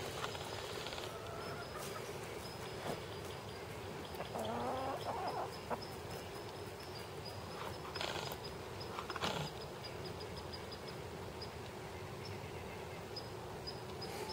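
Chickens calling softly, with a short run of clucking calls about four to five seconds in and a few brief clicks later; no crow.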